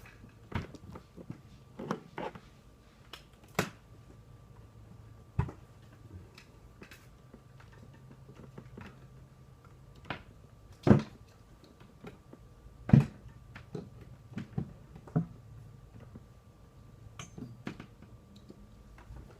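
Scattered knocks, clicks and bumps of someone moving about under a table and handling cords and plugs, with two louder thumps a little past the middle.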